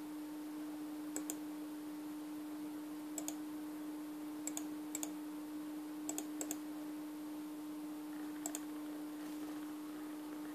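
Computer mouse button clicking about seven times at irregular intervals, each click a quick double of press and release, over a steady hum.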